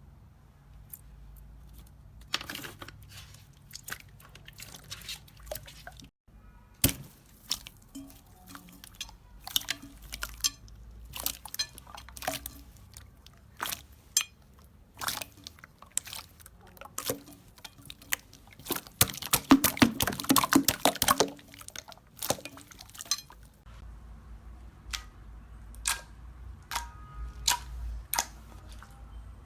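Slime being squeezed and poked by hand, giving irregular sticky crackles and pops, with a dense run of crackling about twenty seconds in.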